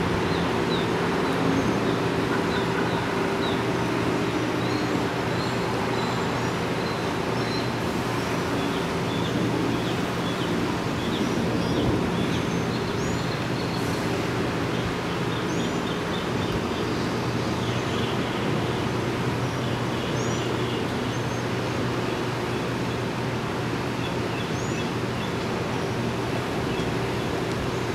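Steady distant engine drone with a low hum, under many short, high chirps of small birds.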